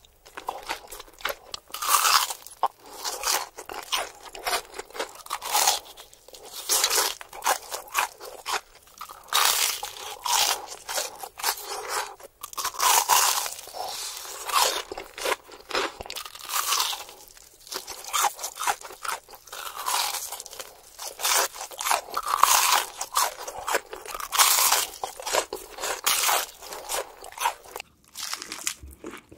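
Close-miked crunching and chewing of deep-fried, panko-crusted cheese corn dogs: crisp bites into the crust come one after another, with short pauses between. Near the end, crunching bites into fried chicken.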